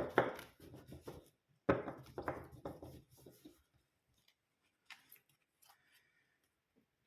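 Large tarot cards being handled: rustling and sliding against each other in the first couple of seconds, then a few faint taps.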